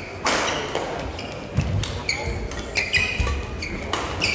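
Badminton rally: sharp racket strikes on the shuttlecock, the loudest just after the start and near the end, with lighter knocks between and short, high squeaks of shoes on the court mat.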